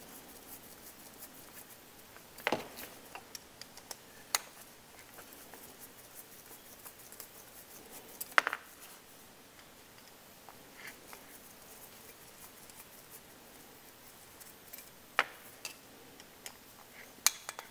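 Scattered light metal clicks and clinks of a wood boiler's damper stepper motor and its metal bracket being handled and worked apart by hand. There are about five sharper knocks with small ticks between them, the loudest about eight seconds in.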